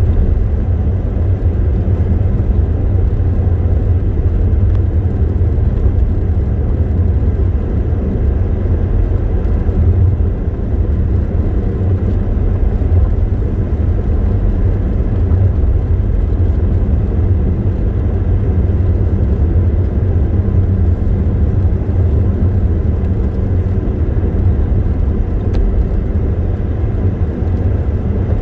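A car driving steadily on a road: an even low rumble of engine and tyre noise, with no change in pace.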